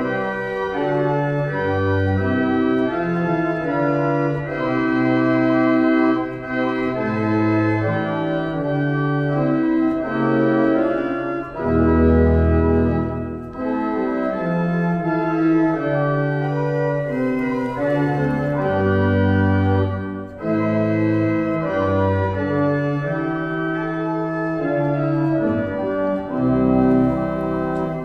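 Wegenstein pipe organ playing sustained chords over a moving bass line, with a few brief breaks between phrases.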